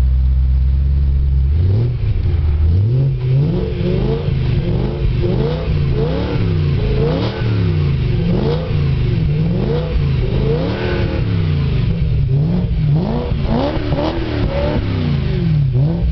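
BMW M3 engine breathing through an Agency Power aftermarket exhaust, idling steadily at first and then revved repeatedly in neutral from about two seconds in, each blip rising and falling in pitch.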